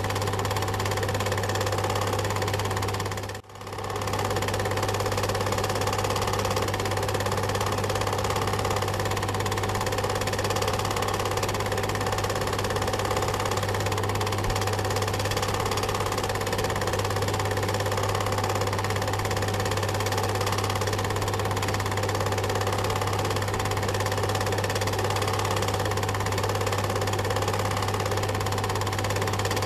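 Film projector running: a steady mechanical whirr and clatter over a low hum. It drops out for a moment about three and a half seconds in.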